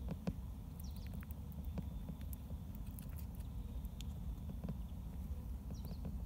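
A mole feeding from a plastic bowl: scattered small clicks and scratches of its claws and snout against the plastic and of chewing, over a steady low rumble.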